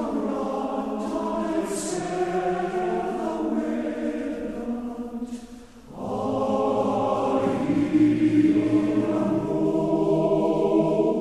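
A choir singing, in two phrases with a short break about six seconds in.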